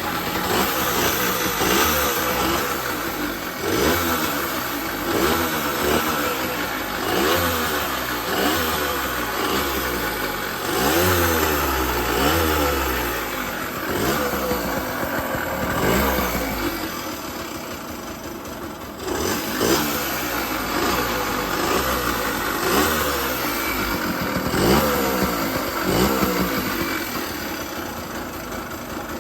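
Yamaha MR50's small two-stroke single-cylinder engine, still cold, revved in repeated short blips every second or two, each rising and falling, with a short lull about two-thirds of the way through. It is running with an abnormal noise that the owner wants to show.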